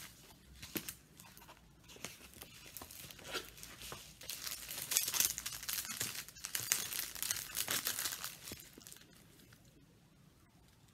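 Packaging crinkling and rustling in irregular bursts as a diamond painting canvas is unwrapped and handled, busiest mid-way and quieting near the end.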